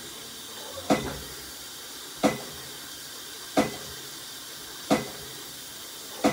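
A sharp click or knock repeating evenly, five times about every second and a third, over a faint steady hiss.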